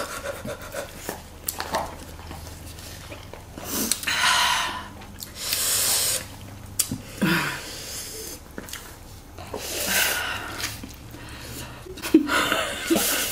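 Instant fire noodles being slurped from a cup: about four long, loud sucking slurps with quieter chewing and mouth sounds between.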